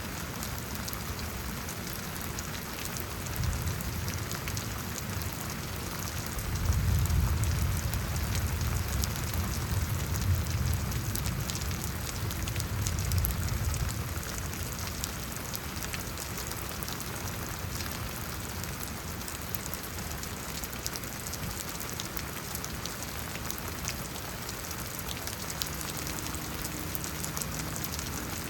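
Steady rain falling and pattering on surfaces during a thunderstorm. A low rumble swells in a few seconds in and fades again about ten seconds later.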